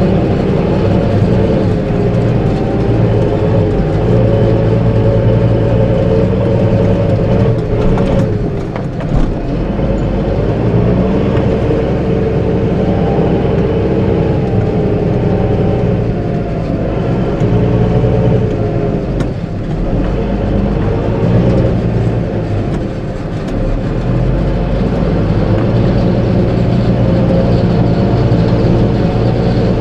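Farm tractor's engine running steadily, heard from inside the cab, with a steady hum whose level dips briefly a few times.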